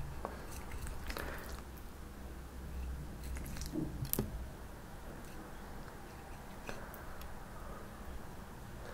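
Wooden chopsticks picking through stir-fried kimchi and laying it on tofu: scattered light clicks of the chopsticks on the plate and soft wet squishes of the kimchi, over a faint low room hum.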